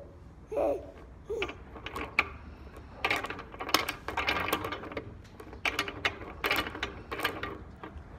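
Wooden beads of a child's bead-maze toy being slid along its wire loops and knocking together: a run of quick clacks and clicks, busiest in the second half.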